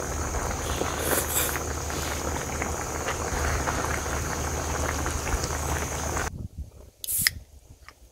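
Stew bubbling and simmering in a pan on a portable gas stove, a steady noisy sound that stops abruptly about six seconds in. About a second later comes a single sharp pop: a beer can being cracked open.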